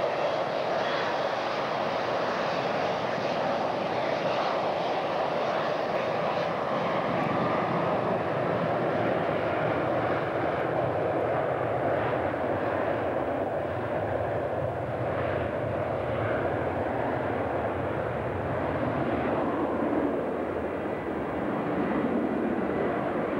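Twin-engine jet airliner running its engines at high power on its take-off roll: steady jet engine noise as it runs past and away down the runway.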